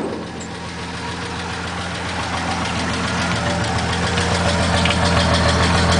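Vehicle engine idling steadily after a hard start that needed starter fluid. It gets gradually louder.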